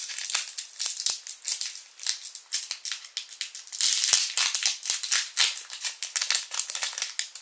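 Foil wrapper of a trading-card booster pack being torn open and crinkled by hand: a dense, irregular crackling.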